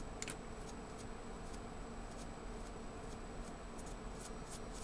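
Paintbrush bristles flicking over the copper fins of a laptop heatsink while brushing packed dust out of them. The result is a faint run of light, irregular ticks over a low steady hum.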